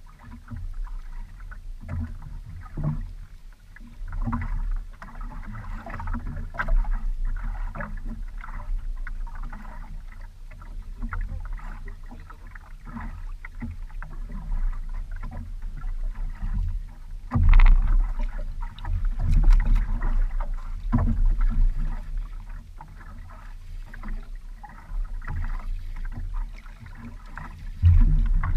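Water lapping and slapping against the hull of a small outrigger boat, with irregular knocks and thumps; the loudest come a little past halfway and near the end.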